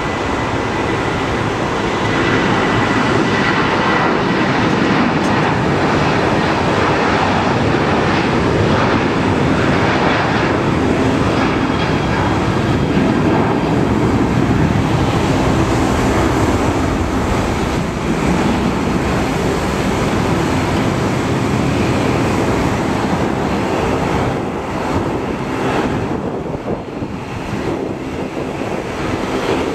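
Boeing 737-700's twin CFM56-7B turbofan engines at takeoff thrust: loud, steady jet noise through the takeoff roll, lift-off and climb-out. A thin high whine sits over it in the first few seconds, and the noise eases slightly near the end as the jet climbs away.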